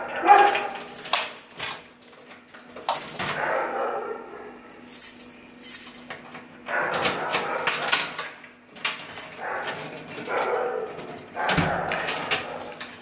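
A dog making repeated sounds, with scattered knocks and rustles.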